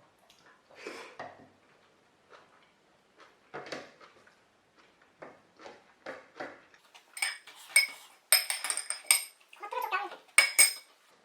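Soft eating and chewing sounds, then, about seven seconds in, metal dishes and cutlery clinking and scraping, with several sharp ringing clinks.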